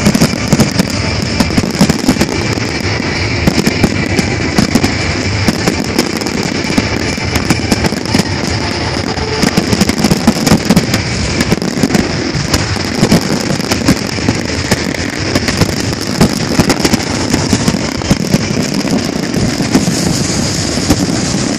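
Fireworks display at full intensity: a dense, unbroken barrage of bangs and crackling from many aerial shells and fountains firing at once.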